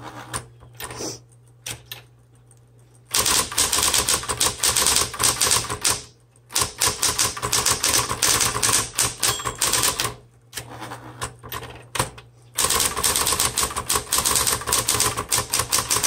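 Smith Corona Electra 110 electric typewriter being typed on fast: rapid runs of keystrokes striking, over the steady hum of its running motor. Only a few strokes in the first three seconds, then quick continuous typing with short pauses about six seconds in and again around ten to twelve seconds.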